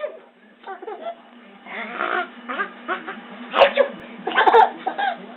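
A woman making exaggerated fake sneezes, with two sharp sneeze bursts in the second half among other voice sounds.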